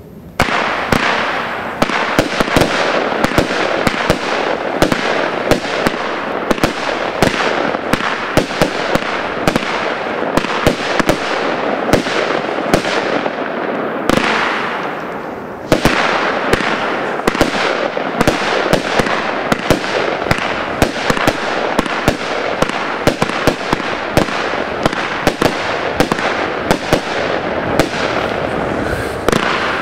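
Napoles 57-shot firework compound cake firing: many sharp bangs, one after another, over a dense continuous rushing noise. The noise dies down briefly about halfway through, then the firing starts again.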